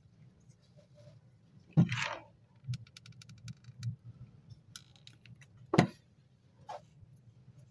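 Handling noise from small hobby parts and a hot glue gun on a hard work surface: two sharp knocks, about two and six seconds in, with a quick run of light clicks between them and a smaller knock near the end.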